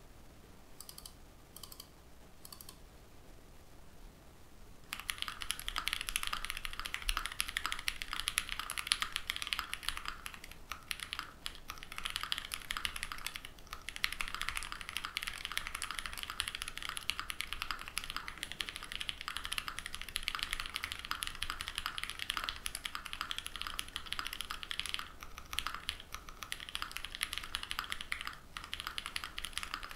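Typing on an ai03 Vega mechanical keyboard with lubed Pewter light tactile switches on a full aluminum plate and GMK keycaps. A few single keystrokes come first, then fast continuous typing starts about five seconds in, with a few brief pauses.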